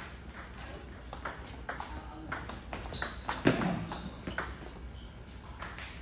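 Table tennis rally: the ball clicking back and forth off rubber paddles and the table about twice a second, stopping about four and a half seconds in when the point ends. A brief high squeak sounds about three seconds in, near the loudest hit.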